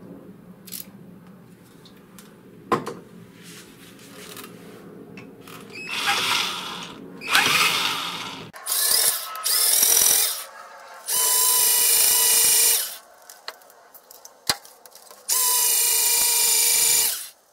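Power drill run in several short bursts of one to two seconds, starting about six seconds in, drilling out a seized screw in the metal chassis of an avionics unit.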